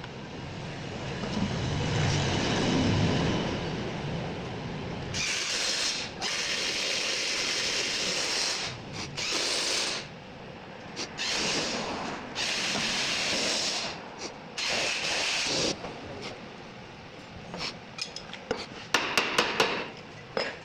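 Tool work on a power steering pump's parts: repeated rubbing, scraping bursts of a second or two each, then a quick run of sharp clicks near the end.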